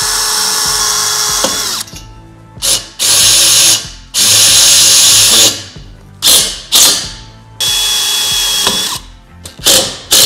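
Cordless drill pre-drilling pilot holes through the rear of a steel ladder-rack upright into the crossbar. It runs steadily with a whine for about two seconds, then starts and stops in about seven shorter bursts.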